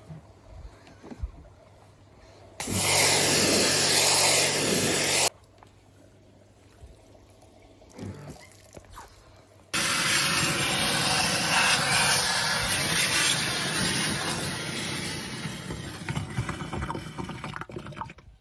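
Pressure washer jet blasting water against the inside of a plastic pond filter box: a short burst of about three seconds, then after a pause a longer burst of about eight seconds that eases off slightly near the end, each starting and stopping abruptly.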